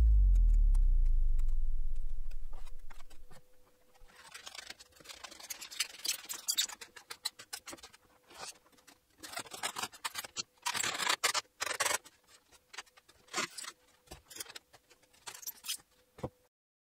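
Background music fades out over the first few seconds, then irregular small knocks, scrapes and rustles as lightweight foam model-aircraft parts and a long thin rod are handled and set down on a workbench.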